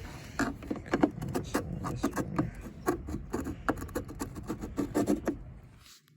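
A run of irregular clicks and knocks, about two to three a second, from plastic car interior trim being handled and worked on; they stop shortly before the end.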